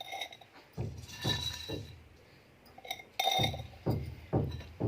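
Glassware and kitchen utensils clinking and knocking as they are handled: about half a dozen light knocks, some with a short high ringing, spaced out with quiet gaps between.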